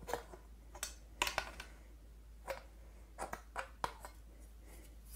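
Faint, scattered clicks and scrapes as the handle of a stainless steel brewing spoon is worked against the crown cap of a glass beer bottle, trying to lever the cap off.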